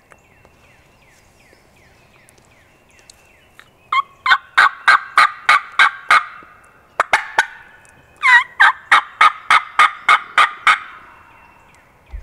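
Mature wild turkey gobbler gobbling hard, in two loud rattling gobbles, the first starting about four seconds in and the second about eight seconds in.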